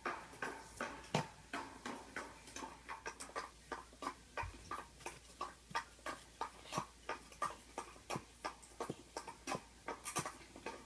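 A steady run of light clicks or taps, about three a second, during play with a toy horse on crumpled tissue paper, with a sharper crackle near the end.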